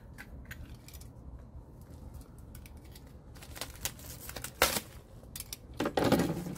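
Hands handling a small plastic-packaged replacement part: scattered light clicks and taps, one sharp click about two-thirds of the way in, then a short burst of plastic bag crinkling near the end.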